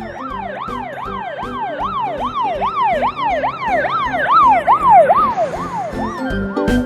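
Fire truck yelp siren, its pitch sweeping quickly up and down about two and a half times a second, growing louder and then fading out near the end.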